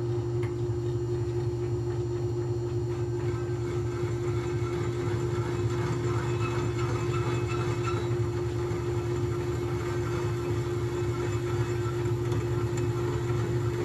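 Clausing metal lathe running steadily while a rod is turned down to diameter, giving a constant low hum and a steady whine.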